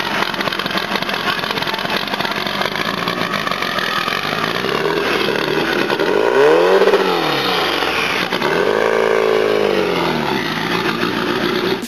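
Vehicle engine running, then revved up and back down twice, its pitch climbing and falling with each throttle blip.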